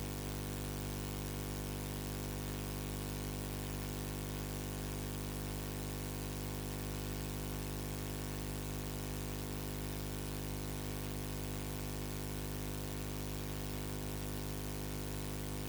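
Steady electrical hum with an even hiss and nothing else, unchanging throughout: the noise floor of an audio feed with no programme sound on it yet.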